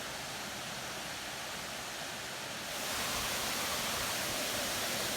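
Steady rushing of a waterfall, which grows louder about halfway through.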